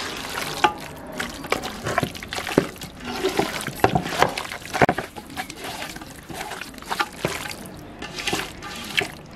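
Marinated chicken pieces being squeezed and turned by hand in an aluminium pot of oily spice and curd marinade: irregular wet squelches and slaps.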